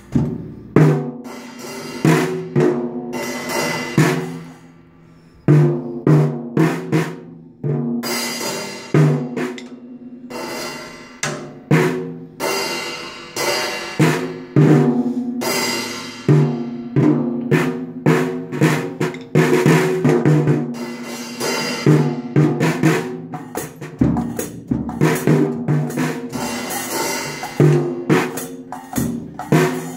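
A toddler banging on a child's junior drum kit: irregular drumstick hits on the drums mixed with ringing cymbal crashes, with a short pause about four seconds in.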